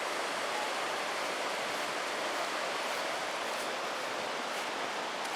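Steady rushing of a flood-swollen river running high after typhoon rain.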